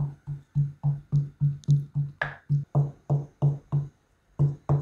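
Wooden pestle pounding garlic and red chilli powder into a paste in a wooden mortar: even, dull thumps about four a second, with a short break near the end.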